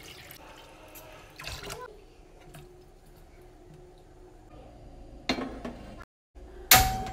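Tap water running and splashing into a non-stick cooking pot in a stainless steel sink. Near the end come two sharp clanks of the pot being handled; the second is the loudest and leaves a brief ringing tone.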